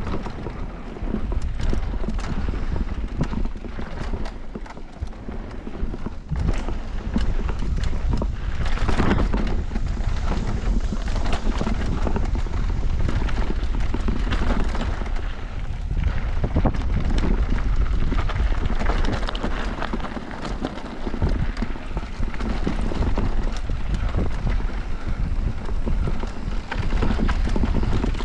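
Mountain bike riding down a rough bike-park trail: tyres running over dirt and rocks and the bike rattling, with a continual clatter of small knocks from the bumps.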